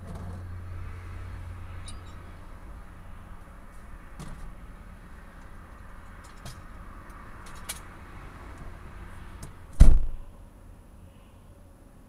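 Freeway traffic passing as a steady rush, with a few small clicks and knocks, then a car door slams shut about ten seconds in, after which the traffic sound drops to a quieter, muffled hush.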